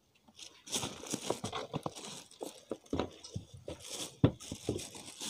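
Clear plastic wrapping crinkling and rustling in quick, irregular crackles as an electric kettle wrapped in it is lifted out of its cardboard box, with the sharpest crackle about four seconds in.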